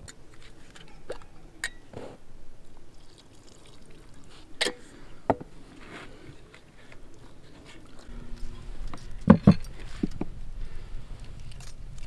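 Melted butter and coconut oil poured into a metal mixing bowl of dry ingredients, then cake batter stirred with a spatula, with scattered clinks and scrapes against the bowl. Two sharp knocks about nine seconds in are the loudest.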